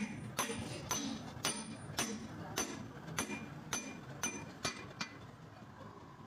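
A hammer striking metal, about ten ringing blows at roughly two a second, that stop about five seconds in.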